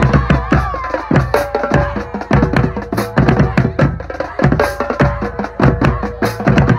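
Marching drumline playing a fast, dense cadence: tenor drums (quads) and marching bass drums struck in rapid strokes, with deep bass-drum hits under the higher drum strokes.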